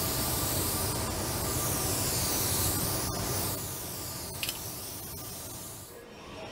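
Compressed-air paint spray gun hissing as it sprays paint onto a car body panel. The hiss sweeps in tone as the gun passes across the panel, and drops to a softer hiss about three and a half seconds in.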